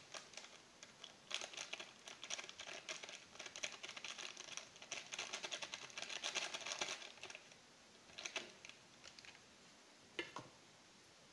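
Plastic foil sachet of powdered milk crinkling and crackling as it is squeezed and shaken empty over a mug, in a busy run of rapid crackles that dies down after about seven seconds. A couple of sharp clicks follow near the end.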